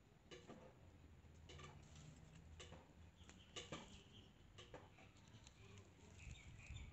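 Near silence: faint outdoor background with a few soft scattered clicks and faint short bird chirps.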